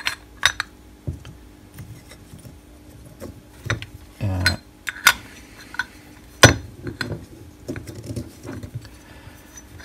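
Irregular clicks and knocks of aluminium timing pulleys and a rubber toothed belt being handled and fitted on an aluminium motor plate, with one louder knock about six and a half seconds in.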